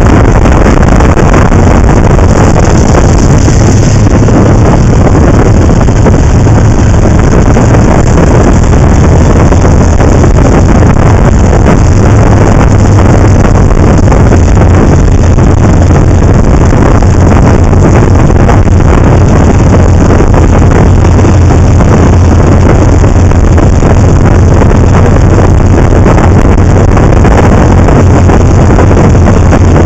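Motorcycle riding at road speed, its engine a steady low drone under heavy wind noise on the camera microphone, loud throughout with no let-up.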